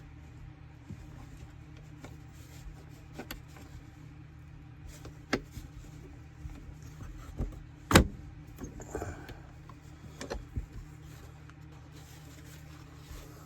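A few sharp knocks and clicks, the loudest about eight seconds in, over a steady low hum.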